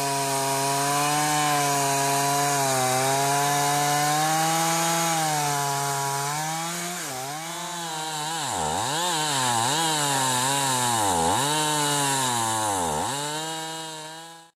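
Small engine running at high speed with a steady note, then its pitch repeatedly dropping and recovering about once a second, as if it were being loaded down or throttled on and off.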